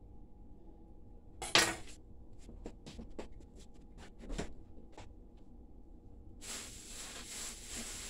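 Kitchen clatter of dishes and utensils: one loud clack about a second and a half in, then a run of light clinks and taps. A steady hiss comes in near the end.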